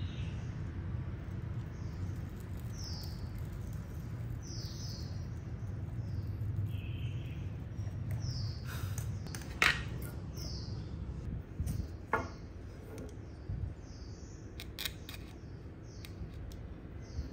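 A bird chirping over and over in the background, short high falling chirps about once a second, over a low steady hum. A few sharp clicks cut in, the loudest about ten and twelve seconds in.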